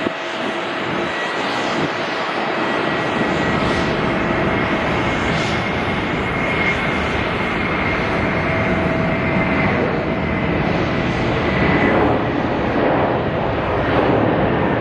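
Twin turbofan engines of a China Airlines Airbus A330-300 at takeoff thrust during the takeoff roll: a loud, steady jet roar with a faint high whine over it, building slightly toward the end as the jet lifts off.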